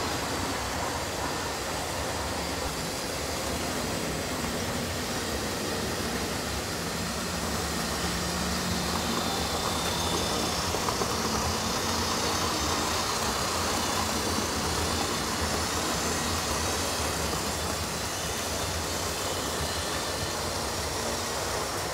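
Model trains running on a layout: a steady rumble of small wheels on track and electric motors, a little louder in the middle.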